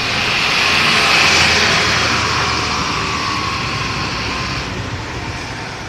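A large bus driving past: a rush of engine and road noise that swells to its loudest about a second in, then slowly fades. No musical horn is heard.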